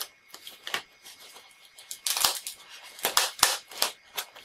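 Scissors cutting along the seam of a polystyrene foam shipping box: a run of short, sharp cutting and scraping strokes with quiet gaps between, most of them in the second half.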